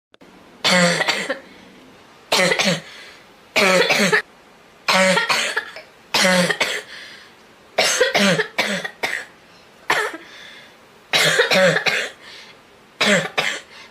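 A girl coughing over and over: about nine short fits, each of two or three quick coughs, coming every second or two.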